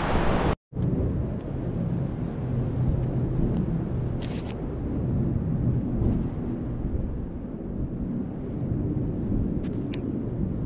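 Steady low rumbling wind noise on the microphone, with a few faint taps near the end.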